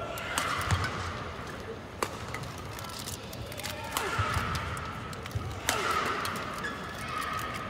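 Badminton doubles rally: sharp racket strikes on the shuttlecock about every one and a half to two seconds, four in all, with shoes squeaking on the court between them over the murmur of the hall.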